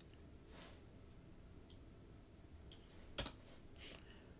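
Near silence: room tone with a few faint isolated clicks of a computer keyboard, the clearest about three seconds in.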